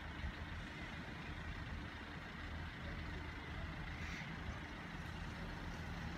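Road vehicle engines idling with a steady low rumble, and a brief hiss about four seconds in.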